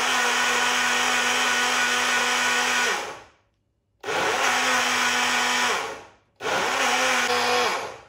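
Personal blender blending a milkshake in three runs: about three seconds, then two shorter pulses, with brief silences between. Each run starts with the motor spinning up to a steady hum and ends with it winding down.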